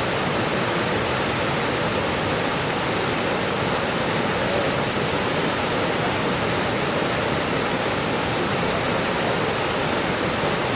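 Storm floodwater rushing across a footbridge and churning against its metal railings: a steady, unbroken rush of water.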